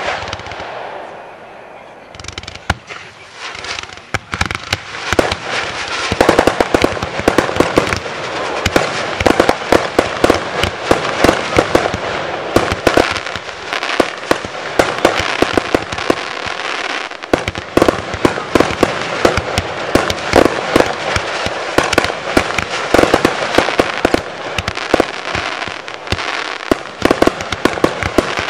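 Class C (1.4G) consumer fireworks firing: a sharp bang at the start, then after a short lull the launches and aerial bursts build, about four seconds in, into a dense, continuous barrage of rapid pops and crackles.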